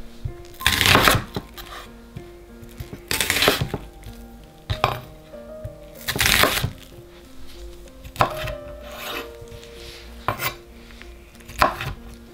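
Kitchen knife slicing through a halved onion on a wooden cutting board: a crisp cut every one to two seconds, each ending in a knock of the blade on the board. Soft background music plays underneath.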